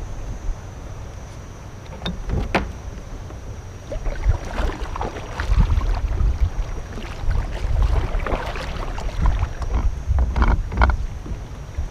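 Wind buffeting the microphone on a small fishing boat at sea, with water sloshing against the hull. Two sharp knocks come about two seconds in, half a second apart.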